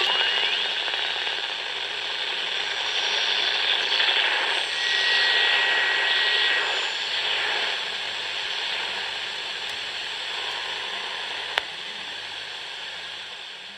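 Steady rushing, hiss-like noise with a faint pulsing hum underneath, fading out near the end; a single sharp click about eleven and a half seconds in.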